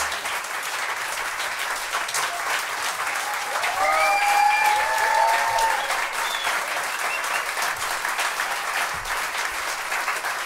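Audience applauding throughout, with a few cheering voices whooping loudest from about three and a half to six seconds in.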